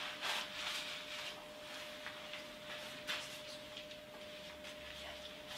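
Fabric patient-lift sling rustling and swishing as it is pulled out from behind a person seated in a wheelchair, with a few sharper rustles about a second apart early on and again about three seconds in, over a faint steady hum.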